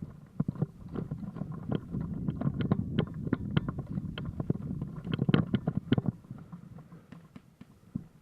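Irregular footsteps and knocks of kit as a player moves on foot, with a low rumble on the body-worn microphone. The steps are busiest between about one and six seconds in, then die down.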